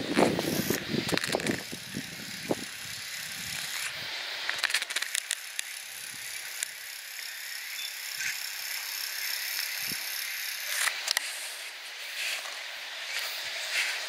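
Outdoor ambience: a steady high-pitched hiss throughout, with rustling and soft knocks in the first two seconds and a few short clicks later.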